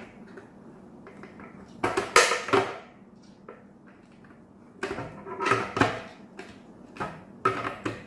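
Hard plastic clicking and rattling as the Deerma F600 humidifier's valve cap is pushed into the water tank's opening and twisted into place, in a few short bursts of knocks.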